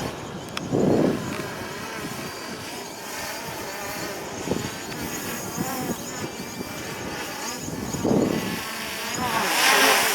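DJI Mavic Pro quadcopter's propellers whining, their pitch wavering up and down as the motors fight strong wind, with wind gusts buffeting the microphone about a second in and again near eight seconds. The whine grows louder near the end.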